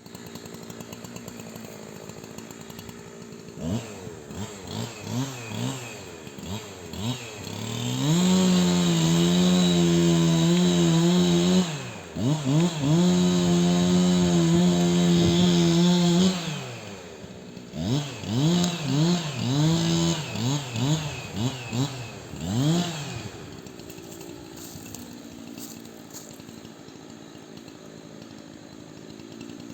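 Two-stroke chainsaw idling, then revved in quick throttle blips and twice held at full throttle for about four seconds with a short dip between. More blips follow before it drops back to idle near the end.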